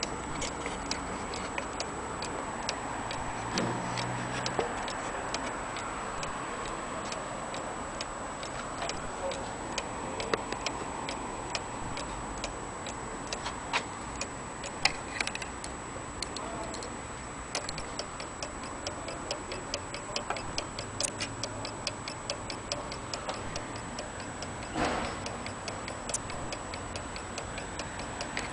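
A small German cuckoo clock's weight-driven movement ticking with a quick, even beat as its pendulum swings.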